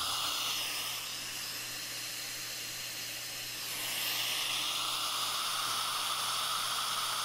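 Steady airy hiss, a little quieter from about a second in and back up near four seconds, with a faint tone in it that dips in pitch and rises again.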